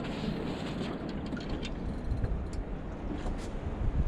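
Wind rumbling on the microphone aboard a small boat on open water, steady, with a few faint ticks.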